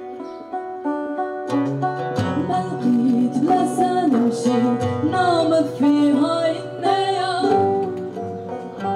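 Folk ensemble music: a plucked long-necked saz playing a run of notes over low held notes that come in about a second and a half in, with a gliding, wavering melody (a singing voice) in the middle.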